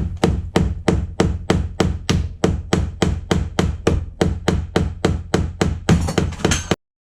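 Rapid, evenly spaced hammer taps, about four a second, over a low steady hum. A brief rustle comes near the end, then the sound cuts off abruptly.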